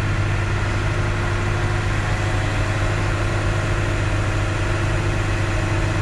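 Truck engine running at a steady idle, a constant low hum with no change in speed.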